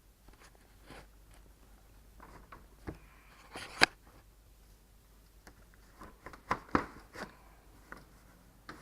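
Ford F-150 upper radiator cover being handled and its clips pushed into place: scattered clicks and knocks, with one sharp snap about four seconds in and a quick run of clicks a couple of seconds later.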